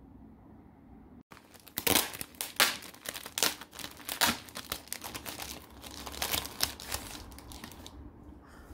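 A clear plastic bag holding a needle-felting kit crinkles in quick crackly bursts as hands handle it and take out the wool roving. It starts about a second and a half in and stops near the end.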